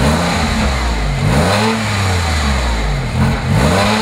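2001 Porsche 911 Carrera's 3.4-litre flat-six revved while standing still: about four throttle blips, the engine note rising and falling each time.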